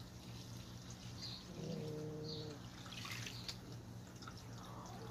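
Water trickling and dripping from a running garden hose, with a few short high chirps and a brief low steady hum about a second and a half in.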